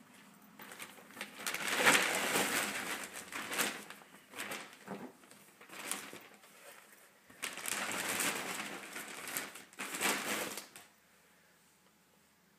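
Clothes rustling close to the microphone as a knitted cardigan and a fabric garment are handled and moved about, in several bursts of rustling that stop near the end.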